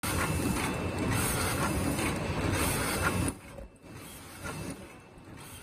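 Double-wall paper cup forming machine running, a dense, fast mechanical clatter. About three seconds in it drops suddenly to a much quieter rattle.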